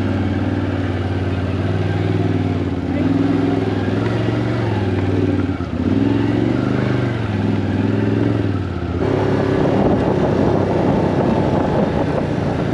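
A motor vehicle engine running, its pitch rising and then dropping back several times. About nine seconds in it gives way to a rougher, noisier sound.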